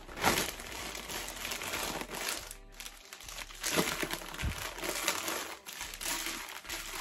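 Crinkling, rustling noise over music.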